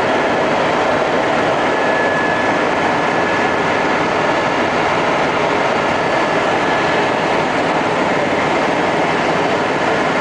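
Steady engine and rotor noise inside a helicopter's cabin in flight, with a faint high steady tone running through it.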